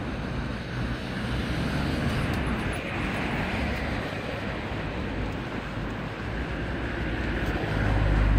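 City road traffic: the steady rush of vehicles driving along the street and through the underpass, with a louder low rumble swelling near the end as a vehicle passes close.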